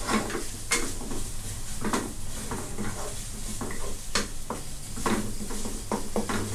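Wooden spatula stirring and scraping a shrimp-paste, shallot and lemongrass curry paste around a non-stick wok, with irregular scrapes and light knocks every second or so. The oil sizzles steadily underneath: the paste being fried over low heat until fragrant.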